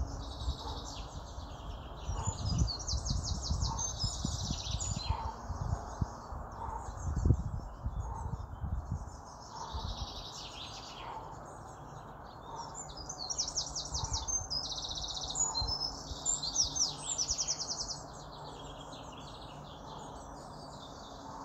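Birds singing: repeated chirps and rapid high trills, loudest in the second half. A low rumble sits under the first half.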